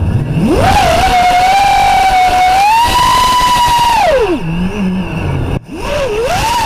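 The DYS 2206 brushless motors of an FPV racing drone whining with throttle. The pitch climbs sharply about half a second in, holds, steps higher around three seconds, then falls away to a low hum after four seconds as the throttle is cut for a flip, and climbs again near the end.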